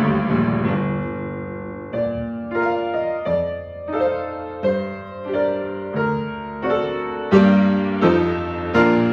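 Piano playing a slow classical piece: a chord rings and dies away, then chords and notes are struck in a steady pulse, about three every two seconds.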